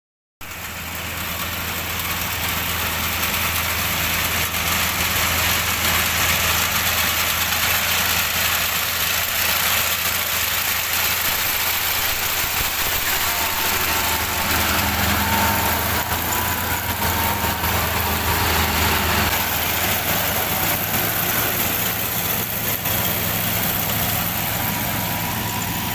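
Rice harvesting machine's engine running steadily, a low hum under a loud, even mechanical rush. A faint thin whine joins it about halfway through.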